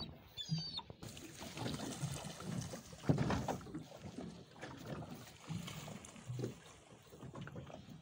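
Water splashing and knocking against a small boat's hull, with a short high bird call within the first second.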